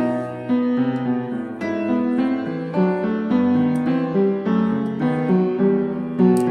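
Background instrumental music: a melody of distinct notes over held chords, changing about twice a second.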